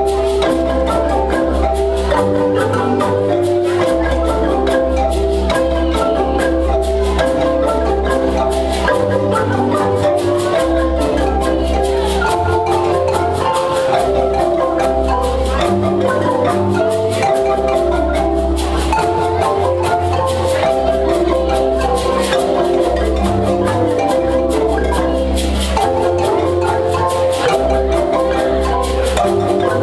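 A marimba ensemble of wooden marimbas with tube resonators playing a lively, rhythmic tune live, many mallet strikes overlapping in interlocking patterns. Low bass marimba notes change every second or two beneath them.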